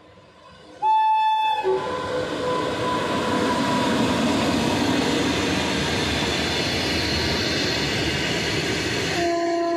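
An electric freight locomotive sounds its horn about a second in, then the train passes close by with a loud, steady rumble of wheels on rail as its open-top freight wagons roll past. A shorter, lower horn note sounds near the end.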